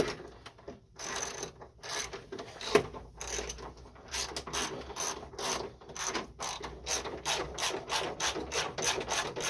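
Ratchet wrench clicking as a bolt holding a pinball machine's backbox is turned. A few irregular knocks give way, about four seconds in, to an even run of clicks at about three a second.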